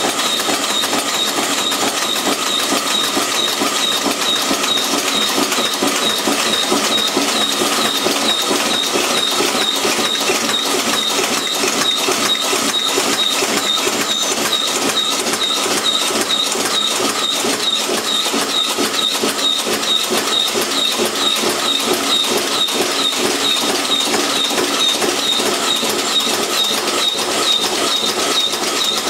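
Aluminum tealight-cup punching press running continuously, stamping cups from aluminum foil strip with a regular metallic clatter and a short high ring on each stroke, about two strokes a second.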